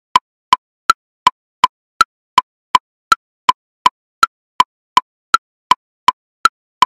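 Metronome at 54 beats per minute subdividing each beat into triplets: a high woodblock click on the beat followed by two lower clicks, in a steady, even pattern that repeats a little more than once a second.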